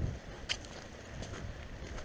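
Wind buffeting the camera microphone in low rumbling gusts that ease off at the start, with the crunch of footsteps on dry leaf litter and a single sharp click about half a second in.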